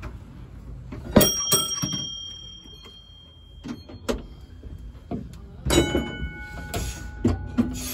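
Bells on a W-class tram: a high-pitched bell struck several times in quick succession about a second in, then a lower-pitched ring of several strikes near six seconds, each left ringing. A few light knocks sound in between.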